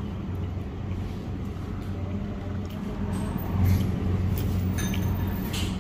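Steady low hum of room background noise, with a few faint light clicks in the second half.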